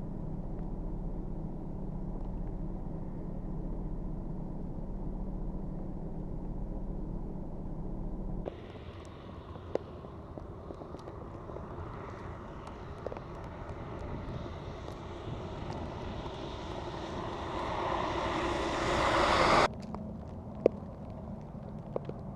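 Road traffic in heavy snow: a steady low engine hum, then the tyre and engine noise of a vehicle on the snowy road growing steadily louder as it approaches, cut off suddenly about twenty seconds in.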